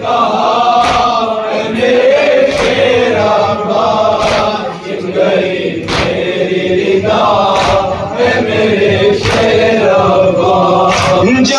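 A group of men chanting a nauha lament in chorus, with unison chest-beating (matam) strikes landing about every 1.7 seconds, seven in all.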